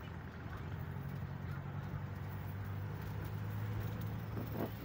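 Vehicle engine running steadily, heard from inside the passenger cab as a low drone, with one short sliding higher-pitched sound near the end.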